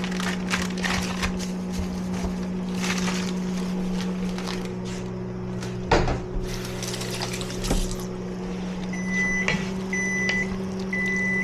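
Stirring and scraping in a cooking pan over a steady electrical hum from a kitchen appliance, with one knock about six seconds in. Near the end, a few short, high electronic beeps sound about a second apart.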